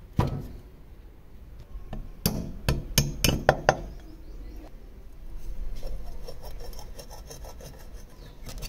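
A rusted cast-iron charcoal iron is set down on a wooden workbench with one sharp knock. A series of sharp metallic clicks and knocks follows. Then comes a longer grating rub with fine ticks as the rusty hinge pin is worked and twisted out of the corroded hinge.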